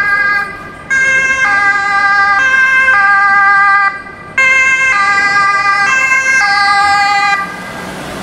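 Austrian ambulance two-tone siren passing by, alternating back and forth between two pitches. It breaks off briefly twice and stops about seven seconds in, leaving the hum of city street traffic.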